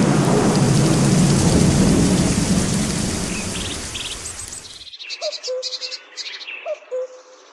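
Thunderstorm: rain hissing under a long rumble of thunder that slowly fades, cut off sharply about five seconds in. Birdsong follows, a short low call repeated a few times among high chirps.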